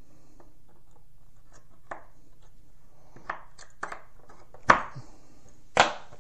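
Small magnet-fitted plastic parts and needle-nose pliers clicking against each other and the wooden bench top: a few light clicks, then two sharp clacks about a second apart near the end.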